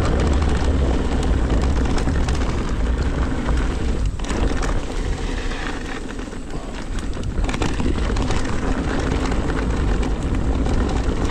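Ride noise of an e-mountain bike going fast over a rough, overgrown trail: a steady low rumble of wind and tyres over the ground, with many small clicks and knocks from the bike. The rider hears it as free of rattle from the rear shock.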